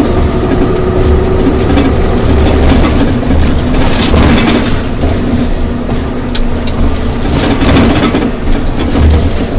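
Daimler Orion VII CNG transit bus with a Cummins Westport ISL G natural-gas engine and Allison automatic transmission, running steadily with a loud, low rumble and a steady engine hum.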